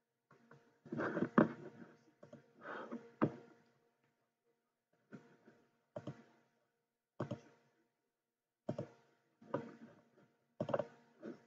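Irregular knocks and clicks, about ten in all, some with a brief ring after them and the loudest cluster about a second in, over a faint steady hum.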